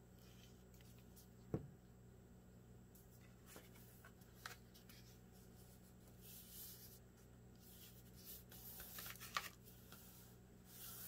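Faint rustling and rubbing of paper as a glued paper layer is pressed and smoothed flat by hand on a tabletop, with a sharp click about a second and a half in and another near the end.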